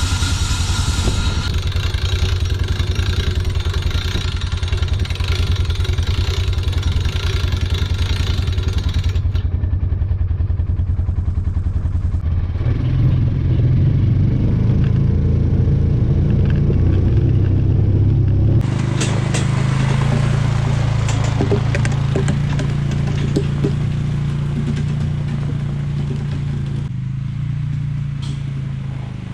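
Utility vehicle engine running steadily at idle, then its note rises and gets louder about twelve seconds in as it pulls away towing a log arch with a cedar log on it.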